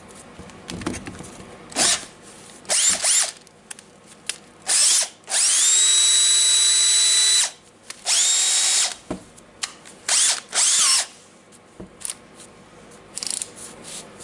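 Makita BHP458 cordless hammer drill's brushed motor triggered on and off: several short bursts and two longer runs, the longest about two seconds, its whine rising in pitch as it spins up and then holding steady. It is being run to check the clutch, which the owner suspects is not limiting torque, pointing to a gearbox problem.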